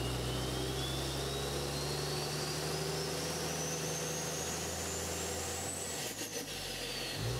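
Logo intro sound effect: a low steady drone under a thin whistle that rises slowly for about six seconds, then falls away, with a few clicks as it turns.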